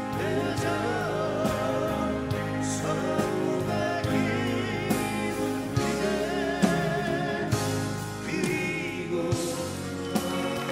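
A live folk-pop band playing: two acoustic guitars strumming over drums and keyboard, with two men singing the melody together.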